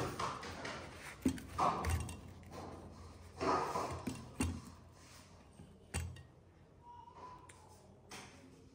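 A few scattered light taps and knocks of dishes and utensils being handled at a meal of bharta, dal and roti. They come irregularly over the first six seconds and then mostly die away.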